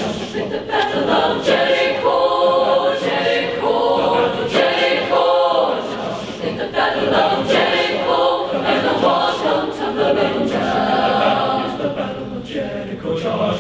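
Large mixed choir of young women's and men's voices singing a spiritual in full, rhythmic chorus under a conductor, with a brief drop in loudness about six seconds in.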